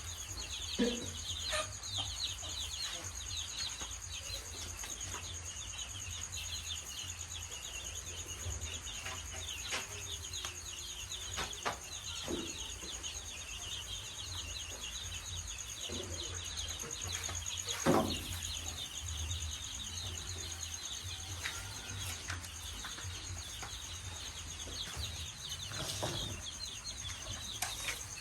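A brood of chicks peeping continuously, many short high chirps overlapping, over a steady high insect-like drone and a low hum, with a few soft knocks.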